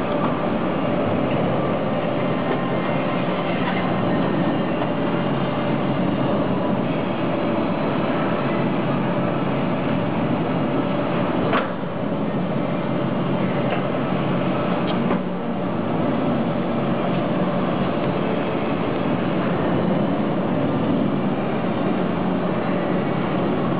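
Linear TIG seam welding machine running through a weld pass: a steady mechanical hum and hiss as the torch travels along the clamped seam, with two sharp clicks near the middle.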